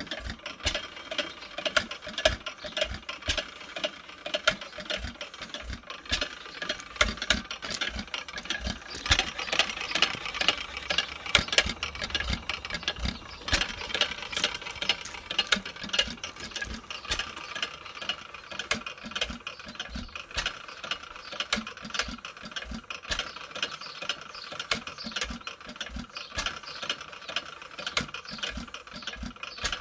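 1898 Barker hot-tube gas engine running, with a busy, uneven clicking and rattling from its moving parts and sharper knocks mixed in.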